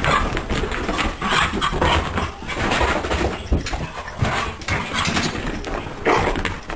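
A cat and a dog fighting: a string of short, loud animal cries, irregularly spaced.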